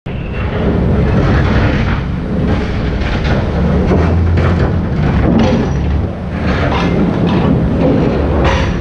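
Kobelco crawler crane running for hammer-grab excavation, with a low engine hum that swells at times. Repeated clanks and knocks come as the hammer grab is lowered into the steel pile casing.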